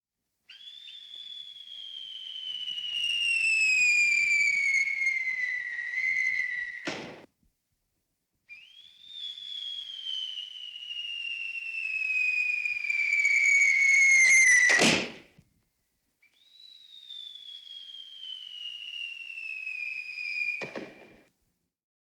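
Cartoon falling-whistle sound effect, the Looney Tunes-style fall, played three times. Each time a long whistle slides slowly down in pitch and ends in a sudden thud of impact, the second one the loudest.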